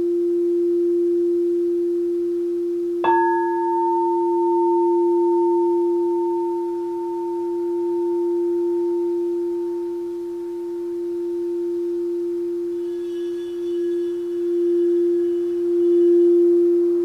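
Crystal singing bowls: a low bowl sings one steady tone that slowly swells and fades. About three seconds in, a higher bowl is struck and rings on over it, fading slowly.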